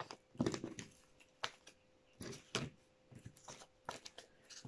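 A deck of divination cards being handled by hand: a card laid on the table, then the deck shuffled, with an irregular series of short card flicks and taps, about ten in all.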